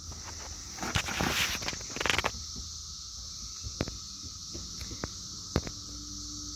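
Steady high-pitched chorus of insects in the woods, with rustling and scuffing in dry leaf litter for a second or so about a second in, and a few sharp clicks later.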